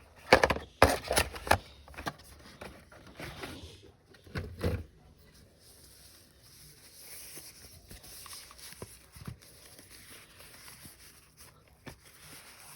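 Handling noise from unboxing a mechanical keyboard and its accessories: a quick cluster of sharp knocks and rustles in the first couple of seconds, a few more knocks around four seconds in, then only faint hiss with an occasional light tick.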